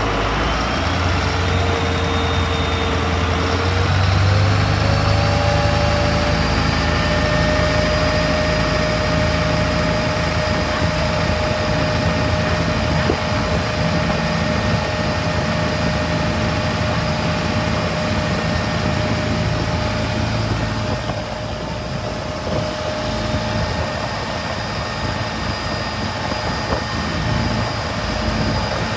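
Cummins QSB 6.7 inboard diesel driving a speedboat hard under throttle, its note climbing over the first few seconds and then holding steady, with wind and water rushing past. The owner judges the propeller too heavy in pitch, so the engine loses revs and cannot reach full speed.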